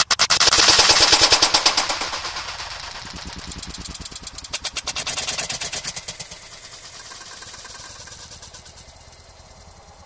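Slowed-down sound of air-rifle pellet hits on cups of water and the splash, stretched into a choppy, rattling stutter. It starts suddenly and loud, and a second loud stretch comes about four and a half seconds in before it fades.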